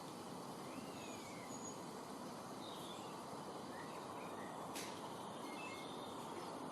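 Faint bird calls over steady background noise: a few short high chirps and one slurred whistle near the start, with a single sharp click just before the five-second mark.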